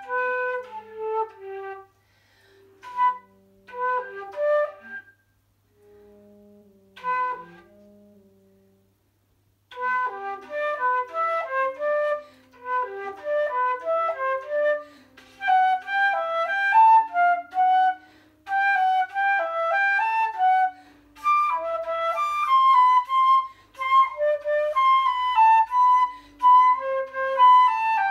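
Transverse flute played solo: a few short phrases broken by pauses early on, with quieter low held notes sounding in the gaps, then fast running passages of many quick notes from about ten seconds in.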